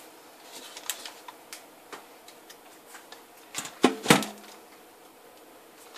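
Light clicks and taps as a soap mold is handled and the loaf is unmolded, with a louder cluster of knocks about three and a half to four seconds in.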